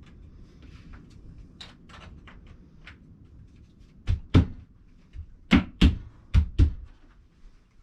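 Parts of a plant shelf frame being fitted and knocked together: light handling clicks, then six sharp knocks in pairs, from about four seconds in, as the rods are seated into the frame.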